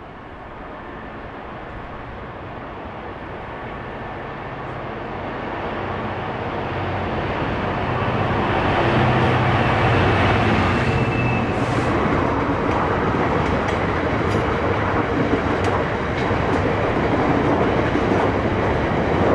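GBRf Class 66 diesel-electric locomotive, with its two-stroke V12 diesel engine, approaching and passing close by, its engine growing louder to a peak about nine seconds in. Then the steady running noise of a long train of hopper wagons rolling past, with scattered wheel clicks.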